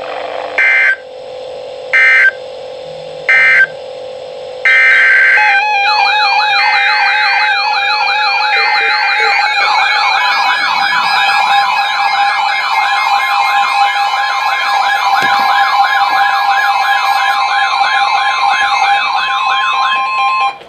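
Emergency alert signalling: three short digital data-burst beeps, then a longer one about five seconds in, followed by layered electronic sirens sweeping rapidly up and down. From about ten seconds in, a steady alert tone joins, and everything stops just before the end.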